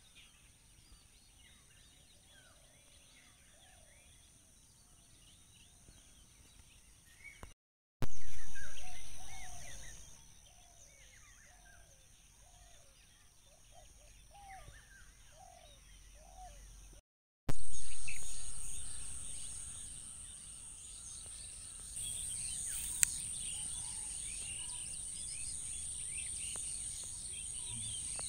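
Rural outdoor ambience: birds chirping and calling in short repeated notes over a steady high insect drone. The sound drops out twice, and each time comes back with a sudden surge of louder noise that fades over about two seconds.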